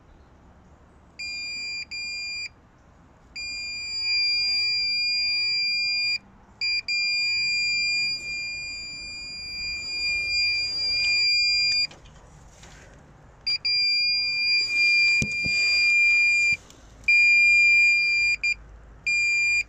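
Fluke 233 multimeter's continuity beeper sounding a steady high tone that cuts in and out in uneven stretches as the glow plug feed wire is moved at its crimped ring terminal. The broken beeping marks a loose crimp making and losing contact, which the mechanic suspects is the cause of the intermittent glow plug fault.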